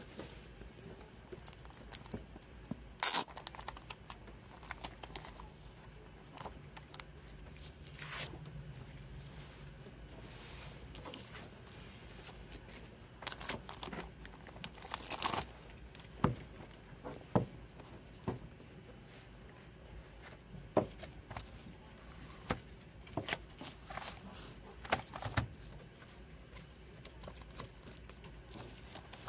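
Clear plastic shrink-wrap being torn and peeled off a Blu-ray box set, crinkling in irregular bursts, with sharp clicks and taps as the box is handled.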